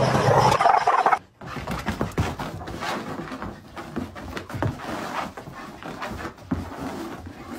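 Two dogs growling at each other, cut off abruptly about a second in. Then quieter, irregular thumps and scuffles of a dog spinning on a carpet.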